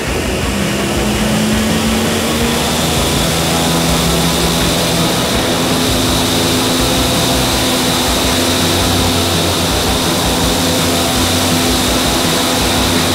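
Vertical wind tunnel fans running at flying speed: a loud, steady rush of air with a high fan whine held on top.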